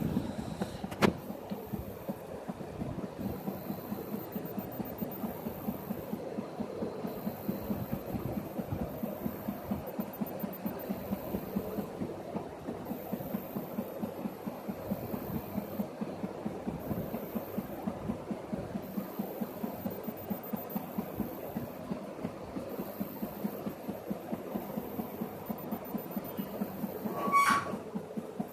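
DVD-drive stepper motors of a home-built 3D printer running during a print, giving a continuous fast rhythmic ticking and buzzing as the head moves back and forth. There is a sharp click about a second in and a brief louder whine near the end.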